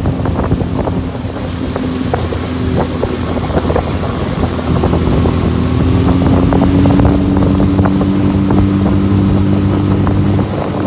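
Honda Big Foot 30 hp four-stroke outboard running at speed with the boat under way, its note steady and rising slightly about five seconds in. Wind on the microphone and spray and the hull slapping the water run under it.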